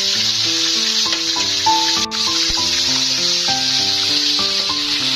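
Hot oil sizzling steadily around a whole chicken frying in a wok as oil is ladled over it, under background music with a melody of short held notes. The sound drops out very briefly about two seconds in.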